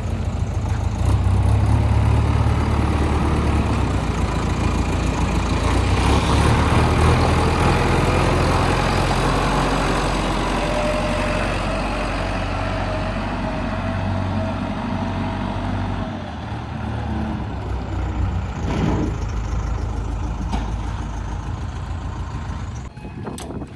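Diesel engine of a JCB 3DX backhoe loader running hard while it works, with a faint rising whine around the middle.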